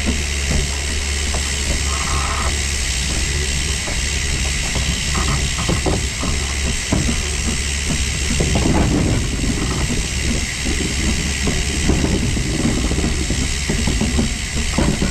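Narrow-gauge steam locomotive heard from on the engine: a steady hiss of steam over a low rumble, with scattered clanks and knocks.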